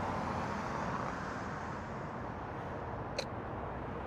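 Steady background road-traffic noise, with a single short tick about three seconds in.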